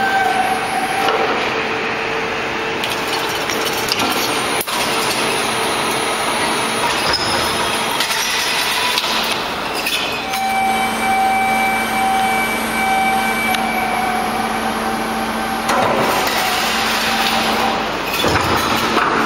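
Slit-coil packing line machinery running: a steady noisy hiss with motor hums and whines that come and go, one whine holding for several seconds midway.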